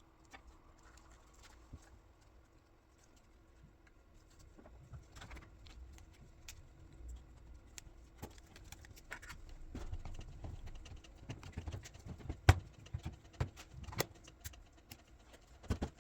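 Hands handling a ThinkPad X220 laptop and its parts: scattered small clicks and taps of plastic and metal, sparse at first and busier from about five seconds in, with one sharp click about twelve seconds in. A faint steady hum runs underneath.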